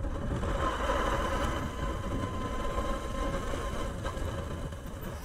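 Motorbike engine running steadily while riding at about 35 km/h, heard from the rider's seat over a low rumble of wind and road noise, with a faint steady whine.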